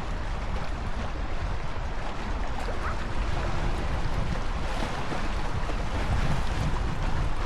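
Strong wind gusting and buffeting the microphone, with lake water splashing in waves underneath.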